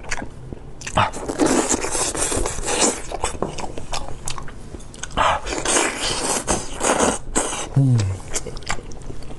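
Close-miked eating of lamb trotters: chewing and biting, with many sharp wet clicks and two longer noisy stretches of gnawing. A brief falling vocal sound from the eater comes near the end.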